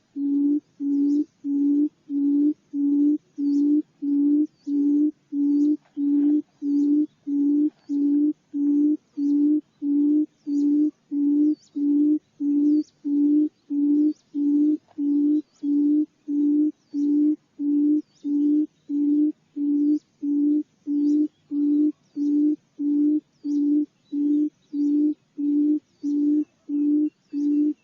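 Recorded call of a barred buttonquail: a low booming hoot repeated evenly, about one and a half times a second, without a break. It is the female's call, used as a decoy sound to draw the birds in.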